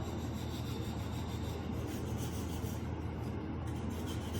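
A sanding stick rubbed quickly back and forth over the edges of a small wooden cutout, a steady rasping scrape of sandpaper on wood that smooths off splinters and sharp corners.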